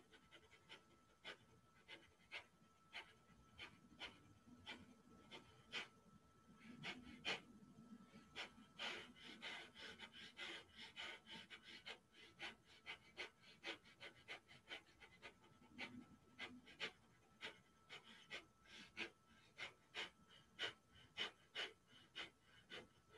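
Breath of Fire breathwork: faint, rapid, forceful exhalations through the nose, pumped by the abdominal muscles. They come in a loose, uneven rhythm of about two to three a second, and quicken around the middle.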